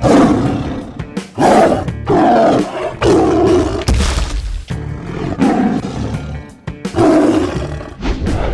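A series of growling roar sound effects, about seven in a row, each under a second to a second long, over background music.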